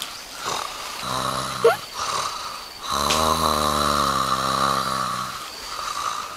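A person snoring: long, drawn-out snores with short gaps between them, and a short rising squeak about a second and a half in.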